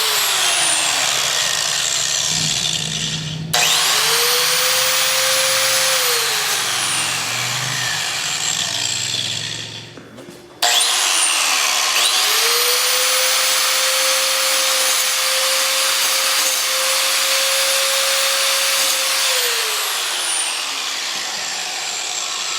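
Angle grinder running at speed and grinding against an iPhone 6's aluminium body, a loud rasping hiss over the motor's whine. The sound breaks off abruptly twice and the grinder spins up again each time. Near the end the motor whine winds down.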